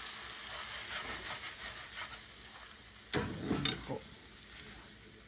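Stir-fried udon noodles and vegetables sizzling in a pan while being tossed with chopsticks, with a brief louder stretch of stirring about three seconds in. The heat has just been switched off, so the sizzle is fading.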